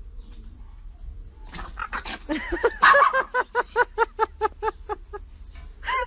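An animal, likely a pet, giving a rapid run of short pitched yelping calls, about four a second, starting about a second and a half in, with one more call near the end.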